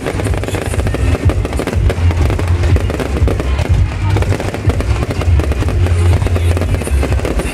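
Fireworks display going off continuously: rapid crackling and bangs over a steady deep rumble of booms, with music playing at the same time.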